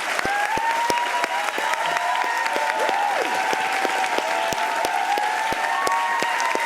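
Studio audience applauding steadily, thick with hand claps, with voices whooping and cheering over it.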